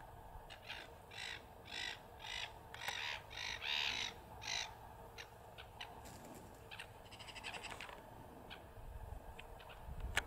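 A crow cawing: a run of about seven calls, roughly two a second, in the first half, followed by fainter scattered clicks.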